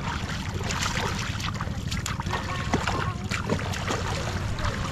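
Seawater splashing and lapping at the shore, with many short sharp splashes over a steady low rumble of wind on the microphone.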